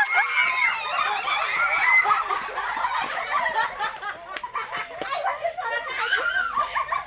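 A group of girls and children laughing, shrieking and chattering while they play, with several voices overlapping, a few high held shrieks at the start, and giggling throughout.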